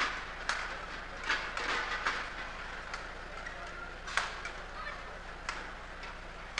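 Badminton rally: rackets striking the shuttlecock with sharp, separate cracks at uneven intervals, about six in all, the loudest about four seconds in. A low arena murmur runs beneath them.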